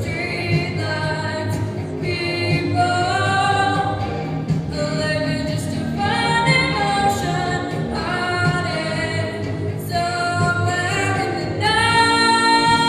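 Live singing with instrumental accompaniment, a sung melody moving from note to note and settling on a long held note near the end.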